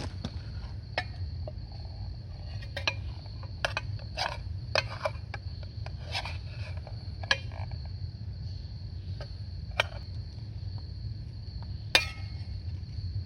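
Metal utensil clinking and scraping against a dish: about a dozen irregular light clinks, the loudest near the end, over a steady high thin tone and a low rumble.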